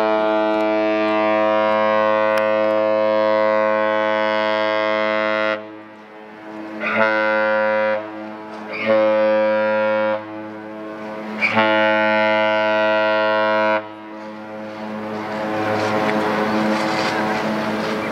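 A cruise ship's deep horn sounding one long blast of about five and a half seconds, then three shorter blasts. After the horn stops, a rushing noise rises near the end.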